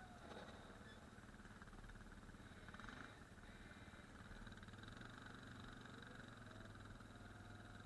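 Faint ATV engine running steadily at low revs, its pitch briefly shifting about three seconds in.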